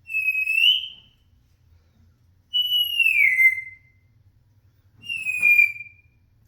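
African grey parrot whistling loudly three times, each whistle about a second long: the first rising at its end, the second sliding down, the third falling slightly.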